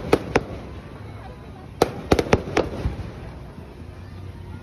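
Aerial fireworks bursting with sharp bangs: two just after the start, then a quick cluster of about five about two seconds in.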